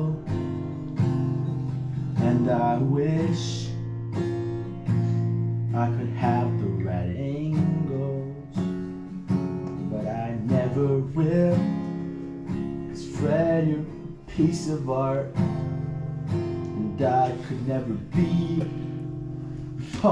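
Acoustic guitar strummed in a steady rhythm, with a voice singing along over parts of it.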